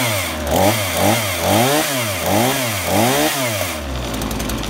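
Titan petrol chainsaw's two-stroke engine revved up and down in quick blips, about twice a second, then dropping back to idle near the end. The engine has just been started cold and is being revved to warm it up.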